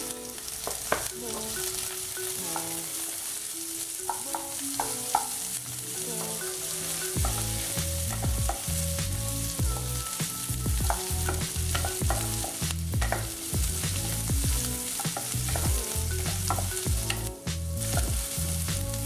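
Chopped vegetables (onion, carrot, green chilli and capsicum) sizzling in ghee in a kadhai while a spatula stirs them, scraping and knocking against the pan, more heavily from about halfway through.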